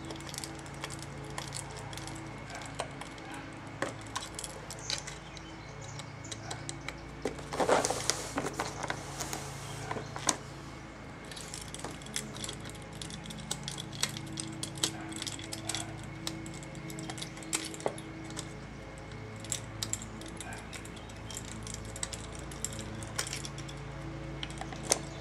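Small metal tools and screws clicking and clinking against the metal frame of a Victor phonograph spring motor as parts are fastened, with a busier burst of louder rattling about eight seconds in. A low steady hum sits underneath.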